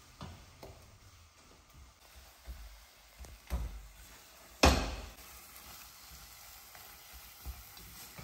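Choux paste being stirred in a saucepan over low heat, the flour being worked into the hot liquid until smooth: a scatter of soft knocks of the utensil against the pan, and one much louder knock about halfway through.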